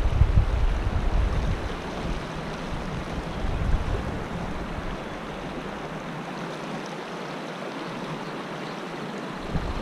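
Mountain river rushing over rocks, a steady hiss of moving water, with wind buffeting the microphone as a low rumble in the first second or so and again near the end.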